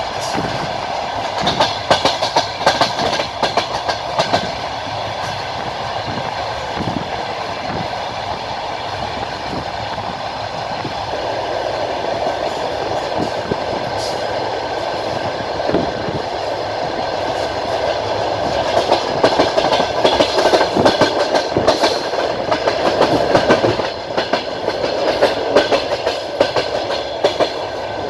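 Train running along the rails, heard from the carriage window: a steady rolling noise with bunches of wheel clacks over rail joints, thickest near the start and through the second half.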